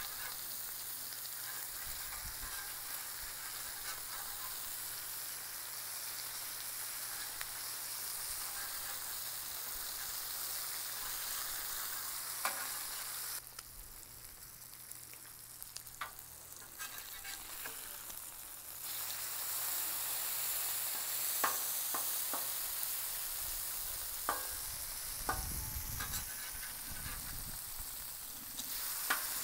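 Bacon sizzling on a Blackstone flat-top steel griddle: a steady hiss that drops for a few seconds midway and then comes back louder. In the second half a metal spatula clicks and scrapes against the steel as the strips are lifted and turned.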